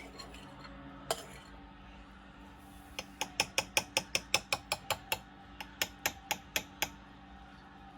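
A spoon clinking against dishware while whipped coffee is spooned onto drinks: two single taps near the start, then a run of about a dozen quick taps, roughly three a second, in the middle.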